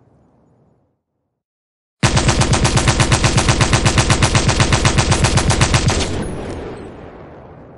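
An MG34 belt-fed machine gun fires one sustained burst about two seconds in, at an even rate of roughly nine or ten shots a second for about four seconds. The burst stops and its echo fades away.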